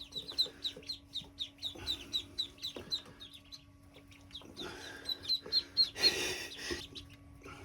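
Ducklings peeping: a quick run of short, high, falling peeps, several a second, that thins out midway and then returns, with a short rustling noise about six seconds in.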